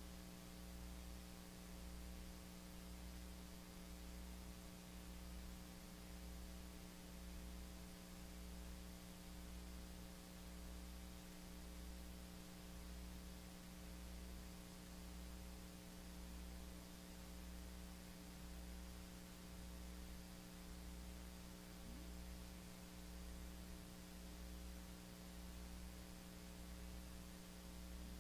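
Steady electrical mains hum with a low throb that pulses about once a second; no voices can be heard.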